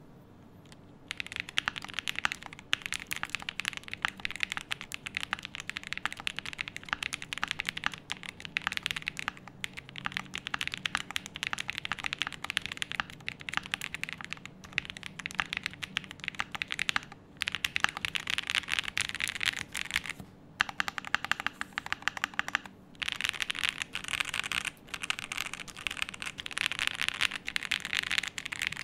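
Typing sound test on a Chilkey PAW65 mechanical keyboard with linear switches and XVX low-profile double-shot keycaps: a fast, continuous clatter of keystrokes that starts about a second in, broken by a few short pauses.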